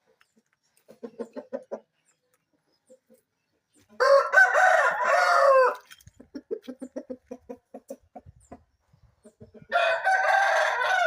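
Rooster crowing twice, each crow a long call of a second and a half to two seconds, with quick runs of short low clucks before and between the crows.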